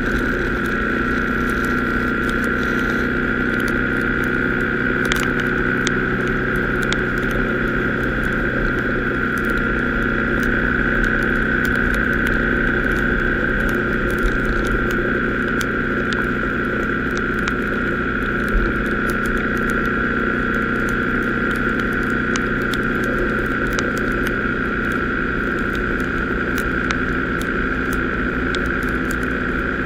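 Motorcycle at motorway speed in the rain, heard from a camera on the bike: steady wind and engine noise with tyre spray and a constant high whine, and scattered small ticks of raindrops striking the camera.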